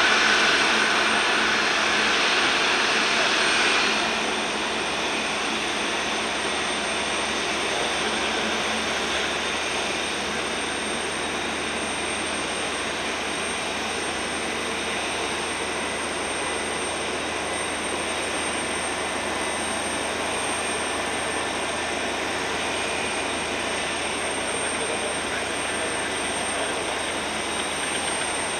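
Jet engines of an Airbus A320neo airliner running at low power as it slows after landing and taxis: a steady jet noise, louder for about the first four seconds, then dropping to an even, lower level.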